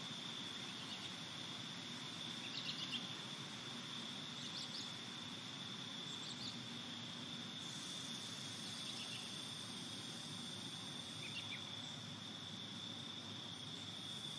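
A steady, high-pitched insect trill runs on unbroken over a low outdoor hiss, with a few short high chirps scattered through it.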